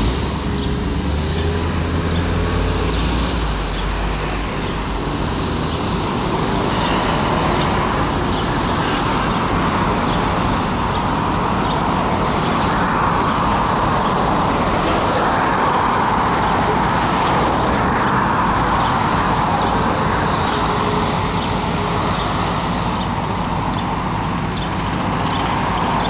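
Road traffic on a multi-lane street: cars driving past with steady tyre and engine noise that swells and fades as each group goes by.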